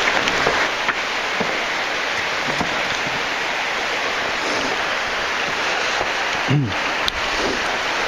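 Water cascading down the limestone of a cave shaft, a loud, steady rush.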